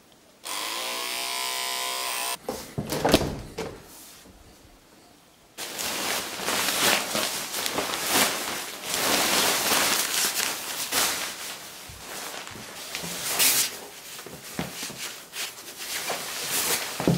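An electric beard trimmer buzzes steadily for about two seconds, followed by a few knocks and clicks. From about five seconds in comes a long stretch of loud rustling as a yellow protective coverall suit is handled and pulled on.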